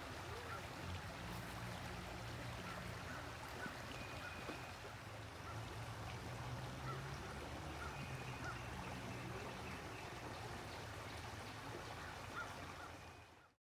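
Faint steady outdoor background noise with a low hum and scattered short, high chirps, cutting off abruptly near the end.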